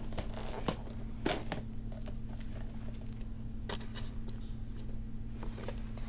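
Scattered scrapes, taps and clicks of a toy's cardboard and plastic packaging being handled and opened, over a steady low hum.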